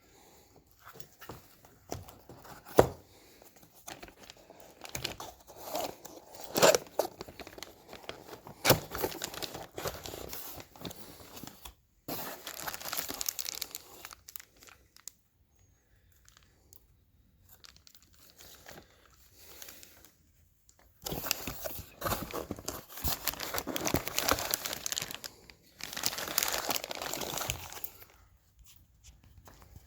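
Wrapping being crinkled and torn by hand in a series of uneven rustling stretches, with a few sharp clicks or knocks in the first third; the longest, densest crinkling comes near the end.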